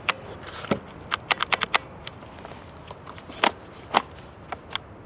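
Sharp plastic clicks, about a dozen in irregular clusters, from an Oregon CS1500 electric chainsaw's trigger and lockout being pressed while its motor stays silent: the saw won't run, and the owner fears its motor has burned out.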